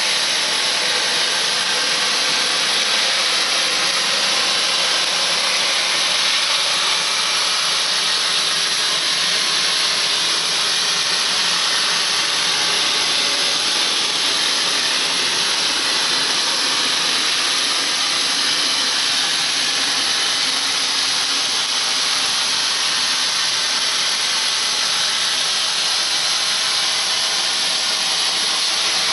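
A loud, steady hiss that holds unchanged throughout, with no beat or pitch.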